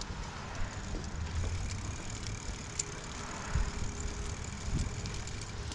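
Steady low rumble of a fat-tire bicycle riding along a concrete sidewalk, tyre noise mixed with wind on the handlebar camera's microphone, with two low thumps about three and a half and five seconds in.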